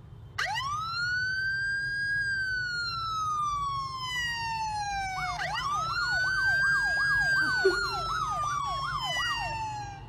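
Recorded police siren played from a smartphone: a slow wail that rises and falls, then a second wail with a fast yelp warbling over it at about two sweeps a second.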